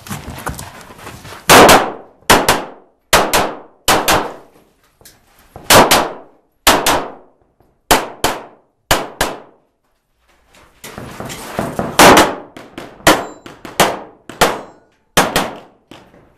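Rapid strings of pistol shots, each crack followed by a metallic clang and ring, typical of steel targets being hit. About twenty shots, in two bursts separated by a pause of about a second partway through.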